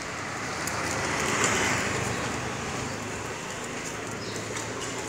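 Street traffic noise: a steady hiss that swells to a peak about a second and a half in, then settles back.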